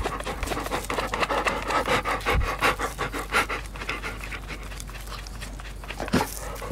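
A dog scratching itself with its claws: fast, rhythmic scratching strokes that ease off into a steadier rubbing after about four seconds, with one sharper thump near the end.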